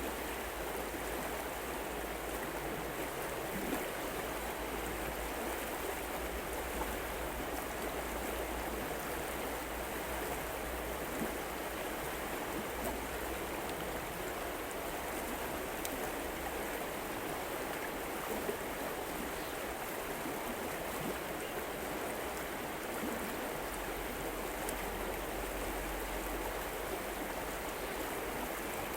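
River water flowing steadily, with a few faint clicks now and then.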